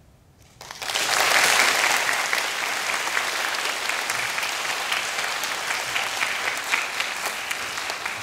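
Audience applause breaking out about half a second in after a brief hush, then running on steadily and easing slightly toward the end.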